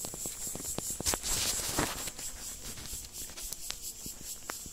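Irregular light clicks and scratchy rustling of handling among dry leaves and stones, over a steady high-pitched drone of insects.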